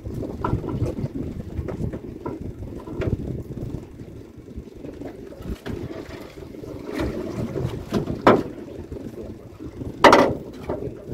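Wind buffeting the microphone and water slapping against the hull of a small boat at sea, a steady uneven rumble. Two sharp knocks come about eight and ten seconds in, the second the loudest.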